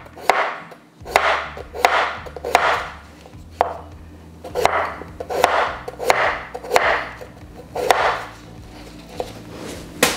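Chef's knife slicing a raw russet potato into thin rounds on a wooden cutting board. Each stroke is a short rasp through the potato ending in a sharp tap of the blade on the board, about a dozen slices at a steady pace with a brief pause after about three seconds.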